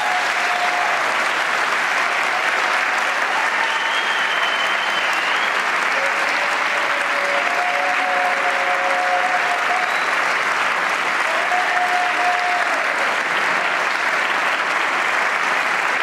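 Audience applauding steadily after a gospel choir's song ends, with a few drawn-out calls from the crowd heard over the clapping.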